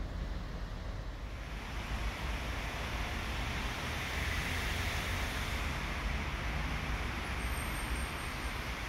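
Steady road traffic noise: a low rumble with tyre hiss that grows louder about a second and a half in.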